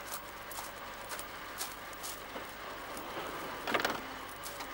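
Footsteps crunching on gravel, short crackling steps about every half second. A louder clatter a little before the end as a van's sliding side door is pulled open.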